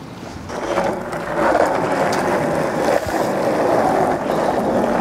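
Skateboard wheels rolling over rough alley pavement: a steady rumble that builds up about half a second in, with a couple of small clacks, and cuts off at the end.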